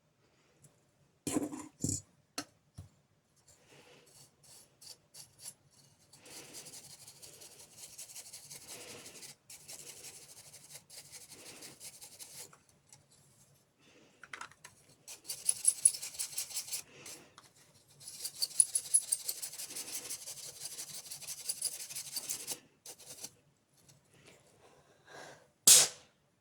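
Rapid scrubbing strokes as dust is cleaned off a laptop's cooling system, in several long spells. There are a few handling clicks near the start and one sharp knock near the end.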